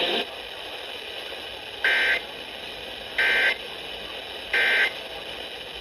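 Three short bursts of Emergency Alert System digital data tones, the end-of-message code that closes an alert. Each burst is a harsh, buzzy squawk about a third of a second long, and they come about 1.3 s apart over a steady radio hiss.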